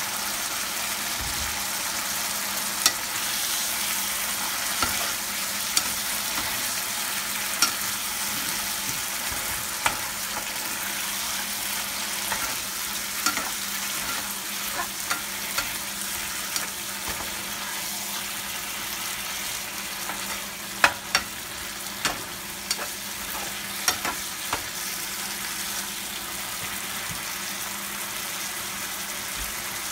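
Shrimp in coconut sauce sizzling steadily in a frying pan, while a spatula stirs and taps against the pan every second or so, the taps stopping a few seconds before the end.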